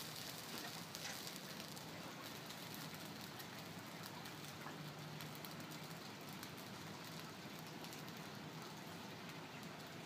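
Faint steady hiss with light crackling from the hot carbon steel wok over a high-heat propane burner, the last of the oil sizzling in the pan.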